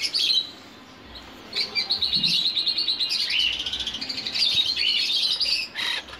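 Caged parrots chattering in rapid, high-pitched chirps, which start after a brief lull about a second and a half in and run on almost without a break.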